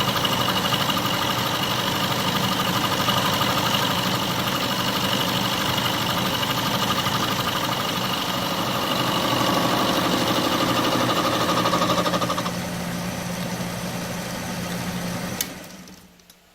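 Atlas metal lathe driving an end mill in a milling attachment, cutting across the welded bottom face of a steel vise, with a steady rough running noise. The cutting noise eases off about twelve seconds in, leaving the machine running more quietly. A click follows a few seconds later and the machine winds down.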